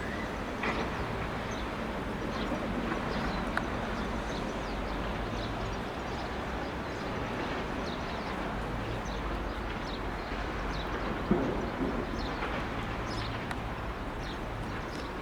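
Steady rumbling roar of the twin turbofan engines of an Airbus A300-600ST Beluga, with no clear rise or fall. A single sharp knock sounds about eleven seconds in.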